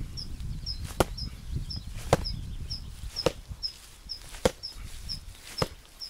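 Punches landing with sharp slaps at an even pace of about one a second, six in all. A faint high chirp repeats about twice a second behind them.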